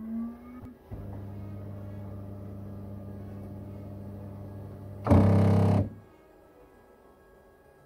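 Bambu Lab X1 Carbon 3D printer running its self-calibration. A rising tone from the printer ends just under a second in, then a steady hum follows. A loud, brief burst comes about five seconds in, and it is quieter after it.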